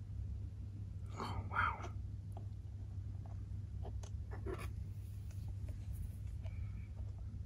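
Crumpled paper towel rustling and crinkling as it is handled, loudest in a short burst about a second in, followed by a few faint clicks, over a steady low hum.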